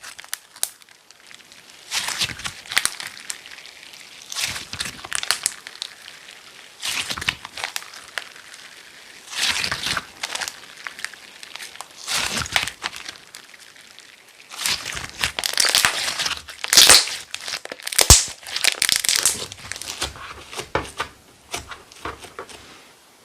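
Glitter slime being pressed and squeezed by hand, giving irregular bursts of crackly noise every second or two, busiest in the second half.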